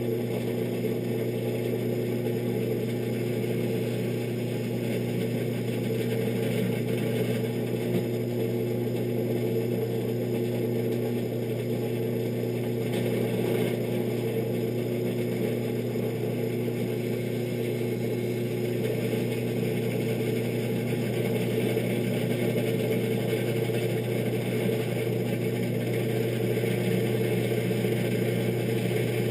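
Electric drill motor running steadily while drilling a hole through a metal truck door handle; it starts suddenly just before and holds an even pitch throughout.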